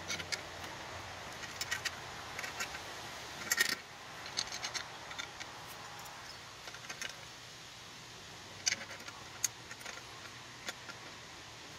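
Small steel bolts clinking and jingling in the hand as they are picked out and fitted into a scooter's CVT cover: irregular little metallic clicks, loudest about three and a half seconds in and sparser in the second half.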